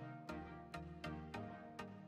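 Chill background music with a steady beat of about two strikes a second over sustained notes and a bass line.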